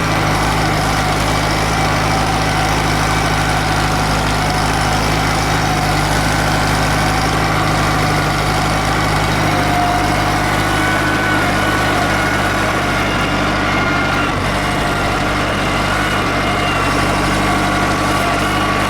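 Valmet 85 ID tractor's diesel engine running steadily under load while pulling a disc harrow through soil. A steady low engine note, with a faint whine above it that drifts slightly in pitch.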